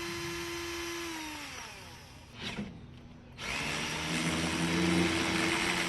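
An electric power tool, drill-like, runs at a steady whine, winds down about a second in, then after a short clatter spins back up and runs steadily again.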